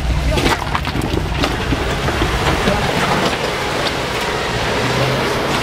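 Early Ford Bronco crawling slowly over rock, its engine running low under a steady crunching and crackling of tyres grinding over rock and grit.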